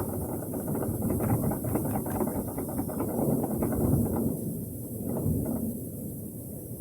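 Strong winter wind blowing in gusts through bamboo, the stems and leaves rustling. It swells to a peak about four seconds in, then dies down, with one brief flurry shortly after.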